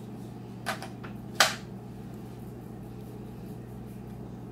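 Two sharp clicks, a small one and then a louder one about a second and a half in, as a word card is put up on a whiteboard, over a steady low hum.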